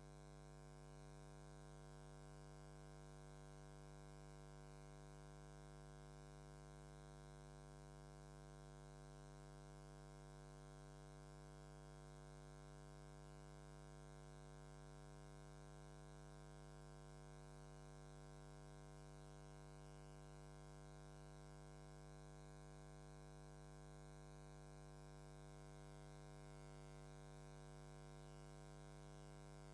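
Faint steady electrical hum: a low buzz with several even overtones, unchanging throughout, with no knocks or strikes.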